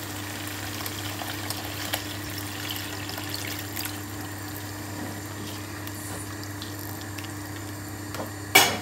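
Tamarind water poured in a thin stream into a pan of simmering chicken masala, with a steady low hum underneath. A sharp clatter comes near the end.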